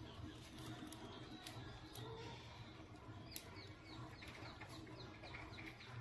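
A small flock of caged budgerigars chirping and chattering faintly, with a quick run of short chirps in the middle and a few sharp clicks, over a low steady hum.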